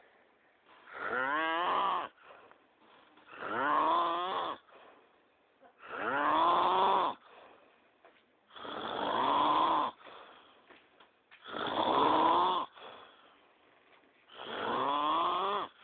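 A person snoring hard: six long snores in a steady rhythm, about one every three seconds. Each snore has a pitched tone that rises and falls, with quiet breaths between.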